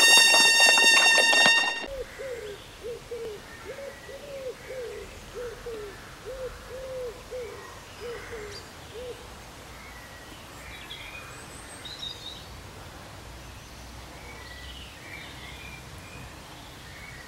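A brass fanfare cuts off about two seconds in, giving way to birds calling outdoors. A bird gives a quick run of short low calls, each rising and falling in pitch, for about seven seconds, while smaller birds chirp now and then over a steady outdoor background.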